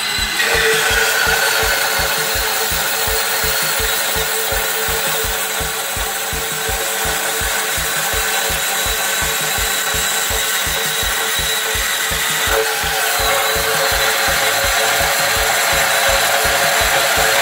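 DeWALT DCS371 18V cordless band saw running and cutting through a metal bar: a steady motor whine with the blade's rasping under it, starting about half a second in.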